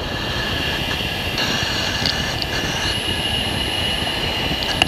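F-16 cockpit noise in high-speed low-level flight: a steady rush of engine and airflow with a thin steady high whine over it, and a brief click near the end.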